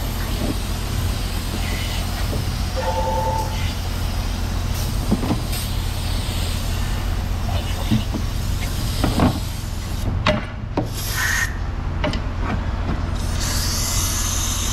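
Parts washer running with a steady low pump hum while oily engine valve covers are scrubbed and handled in its metal-and-plastic tub, giving scattered knocks and scraping. Short hisses of spray come about ten seconds in and again near the end.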